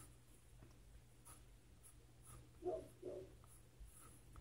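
Faint scratching of a colored pencil sketching quick, loose strokes on sketchbook paper, with two short, soft sounds close together a little before three seconds in.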